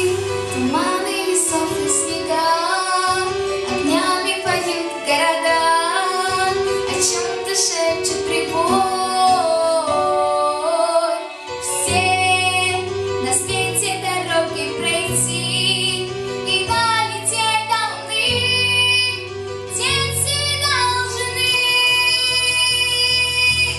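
A young female voice sings a song with instrumental accompaniment: held, gliding vocal lines over steady keyboard chords and bass.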